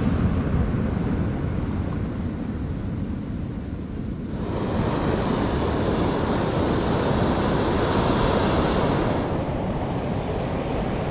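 Ocean surf breaking and washing over a stony beach, with wind buffeting the microphone. About four seconds in the wash turns brighter and fuller, and it eases again near the end.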